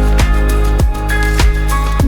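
Background music with a steady drum beat, about one beat every 0.6 seconds, over held bass notes.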